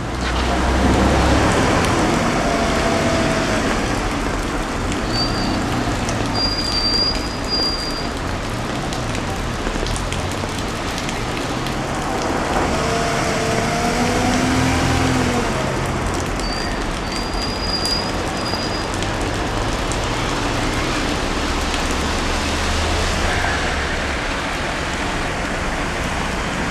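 Steady hiss of heavy rain on a flooded road, with the low rumble of cars and a police car driving through the floodwater.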